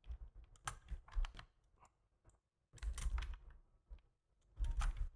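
Computer keyboard keystrokes, scattered single taps with a quicker cluster about three seconds in and another near the end.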